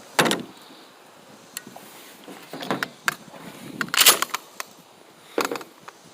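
Mossberg 500 pump-action 12-gauge shotgun being handled while unloaded: a series of sharp mechanical clacks, about six over several seconds, the loudest about four seconds in.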